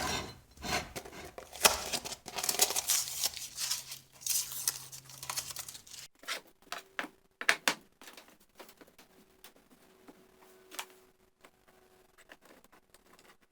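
Masking tape being peeled off freshly painted vise parts, a run of crackling tearing for about six seconds, followed by a few scattered clicks and knocks of handling.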